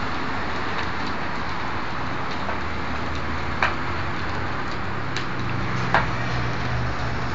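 A large fire burning: a steady hissing rush with a few sharp pops, the loudest two about three and a half and six seconds in, over a low steady engine hum.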